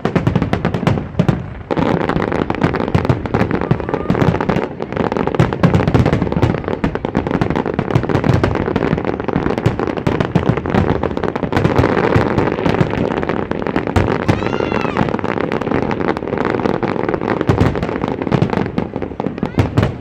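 Fireworks display: a dense, continuous barrage of bangs and crackling reports, with a short whistling glide about three-quarters of the way through.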